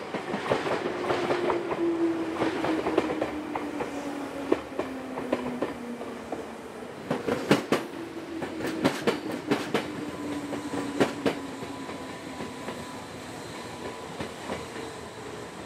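Two-car electric commuter trains running past: a whine that slowly falls in pitch, and a cluster of sharp wheel clacks over rail joints in the middle, followed by another falling whine.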